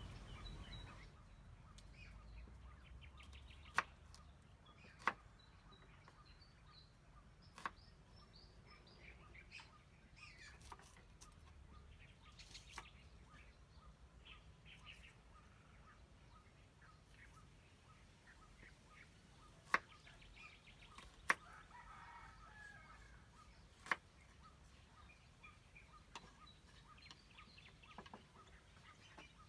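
Faint countryside birdsong with chickens clucking. About six sharp clicks or knocks fall at irregular moments through it.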